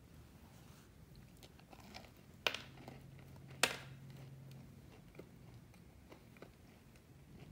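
Crisp sugar-cookie crust of a melon pan crackling, with two sharp crunches about a second apart near the middle.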